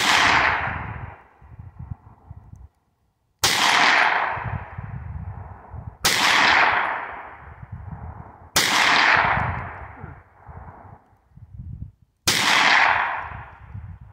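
Kel-Tec Sub-2000 9mm carbine fired five times at a slow, aimed pace, roughly one shot every three seconds, the first right at the start. Each report trails off in a long echo.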